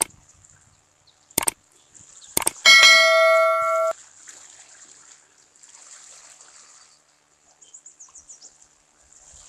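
Subscribe-button sound effect: three sharp mouse clicks, then a bell ding that rings for about a second and cuts off, over a faint outdoor hiss.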